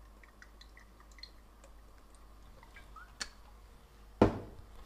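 Faint dripping and small ticks as olive oil is drizzled from a bottle into a hot frying pan, then one sharp knock about four seconds in, the loudest sound.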